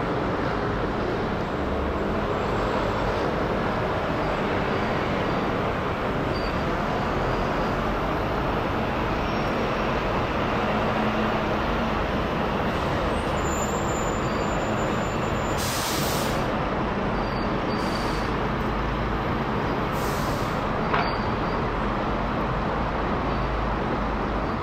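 Steady jet roar from a Boeing 787-9's twin turbofan engines as the airliner climbs out overhead after take-off, with a short click about 21 seconds in.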